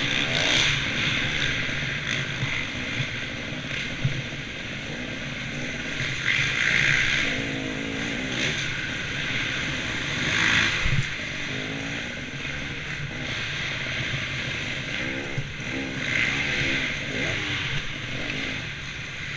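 Motocross dirt bike engine revving hard and easing off again and again as the throttle is worked around the track, heard from a helmet-mounted camera with wind noise. Louder surges about half a second in, around six and ten seconds in, and again near sixteen seconds.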